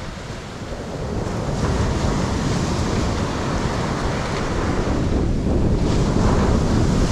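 Ocean surf breaking and washing up the sand, with wind buffeting the microphone as a low rumble; it grows louder about a second and a half in.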